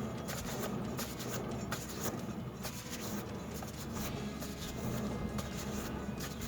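A wheel on a raised car spun by hand, its hub and bearing turning with a steady low rumble and a run of small clicks and scrapes.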